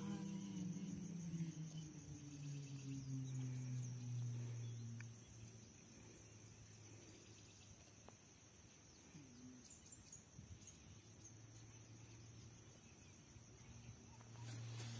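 Insects trilling steadily at a high pitch in the lakeside grass, over a faint low hum that slides slowly down in pitch during the first few seconds, fades, and comes back near the end.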